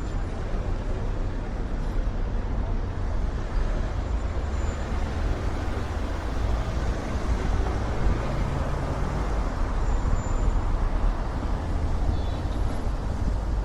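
Steady low rumbling of wind buffeting an Insta360 X4 camera's microphones, which are fitted with a wind-protection cover.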